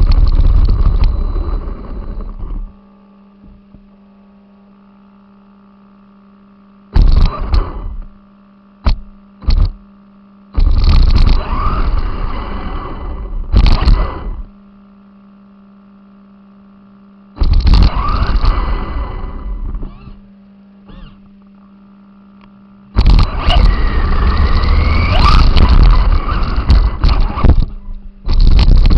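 Onboard sound of an RC car driving in several short spells: loud rough rattling and rumbling with brief rising motor whines, stopping in between to a steady electrical hum.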